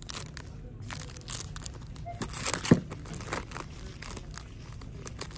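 Plastic-wrapped notepads crinkling and rustling as they are handled and put back on a shelf, with one sharp knock about two and a half seconds in, the loudest sound.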